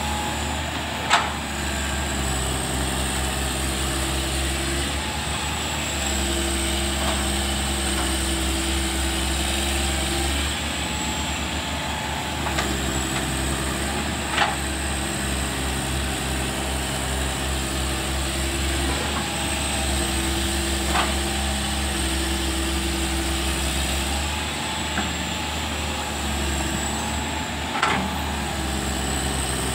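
Hitachi tracked excavator's engine running steadily, its note shifting every few seconds as the machine digs and swings through wet mud. A few sharp clanks ring out along the way.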